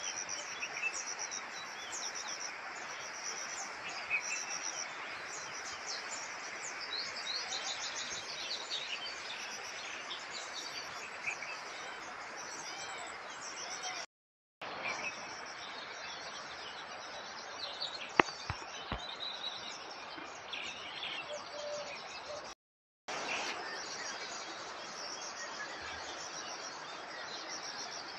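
Several wild birds chirping and calling in garden trees over a steady background hiss; the sound drops out twice for a moment.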